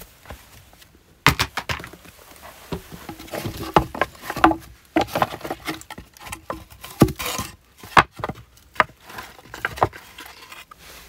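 Dry wooden boards and split wood pieces knocking and clattering together as they are picked up and stacked by hand: a run of irregular sharp knocks, some with a short hollow ring.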